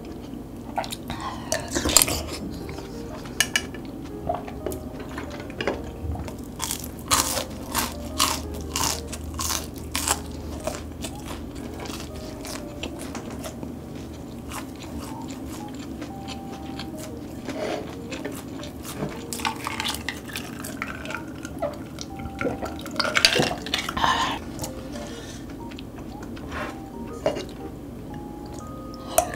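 Spoon clinking and scraping against a large ceramic bowl of thick loach soup, in scattered sharp clicks, with eating sounds close to the microphone.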